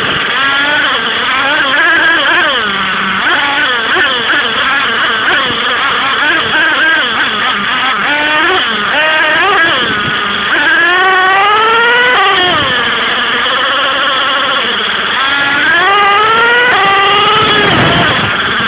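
Engine of the MTA4 racing kart heard from onboard as it is driven hard, its pitch rising and falling again and again as the driver revs up and lifts off. There are long climbs in revs about ten seconds in and again near the end, and the revs fall away sharply just before the end.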